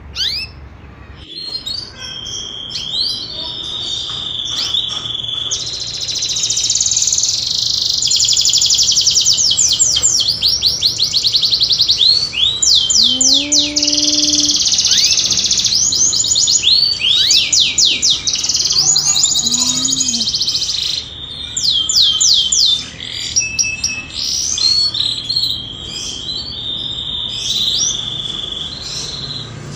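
Canary singing in long, fast rolling trills, rapid sweeping chirps and buzzy held trills. The recording is offered as the call of a female canary in heat, used as a lure to set other canaries singing and mating.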